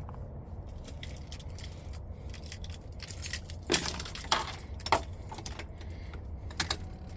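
A few sharp clicks and light metallic clinks over a steady low hum, the loudest cluster between about four and five seconds in.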